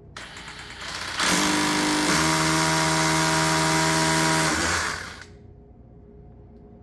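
Power drill boring a hole into a concrete wall for a cement-screw anchor. It starts softly, gets louder about a second in, runs steadily, and winds down about five seconds in.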